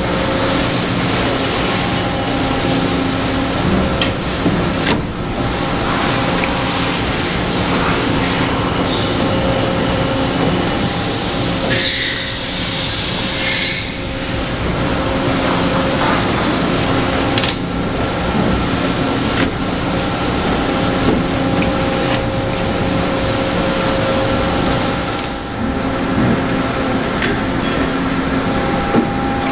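Toshiba BTD13 CNC horizontal boring mill running: a steady mechanical hum with several held tones. There are a few sharp clicks along the way, and a hiss that lasts about three seconds around eleven seconds in.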